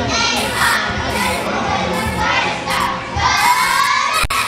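Many children's voices shouting and cheering together, high and overlapping, in a large hall.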